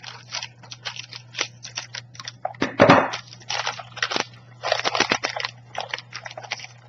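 Rapid, irregular crackling and crinkling as a pouch of salted caramel brownie brittle is opened and the crisp pieces are handled, with one louder snap about three seconds in.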